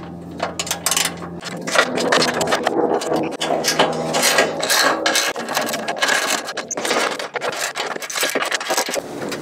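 Socket wrench ratcheting and metal tools clinking and scraping as the bolts holding a truck's crossmember are worked loose, a dense run of short clicks.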